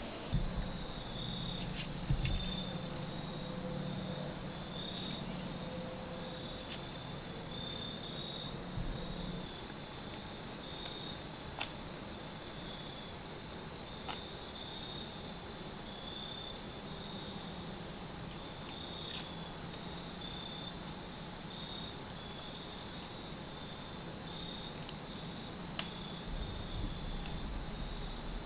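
Evening insect chorus: a steady, unbroken high-pitched trill, with a second insect calling in short, evenly repeated chirps.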